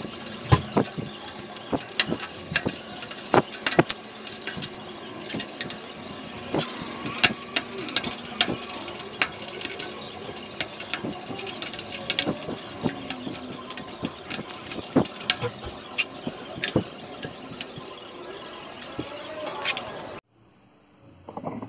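Fast-forwarded bench work on a water pump: a quick string of metal clinks and knocks from tools on the pump, with short high squeaks. It cuts off suddenly near the end.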